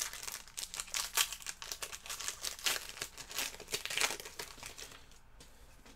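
A plastic trading-card pack wrapper being crinkled and torn open by hand: a run of irregular crackles that dies away about four and a half seconds in.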